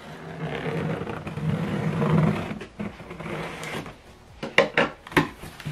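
Scissor blade slitting the packing tape along the seam of a cardboard box, a scratchy scraping drag for about three seconds, then a few sharp knocks near the end.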